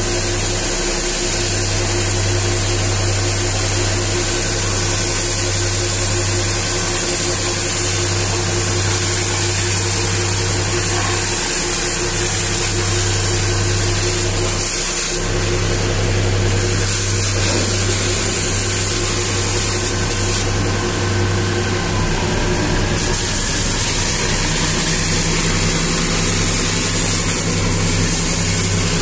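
Pressure washer running steadily: a low machine hum with the hiss of the high-pressure water jet hitting the truck's tyres and chassis. The low hum dips briefly a few times.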